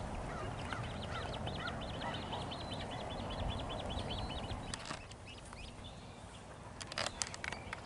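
Birds calling in a fast chattering run of short high calls, about eight a second, for the first three seconds or so, over a steady background hiss. A few sharp clicks or knocks come near the end.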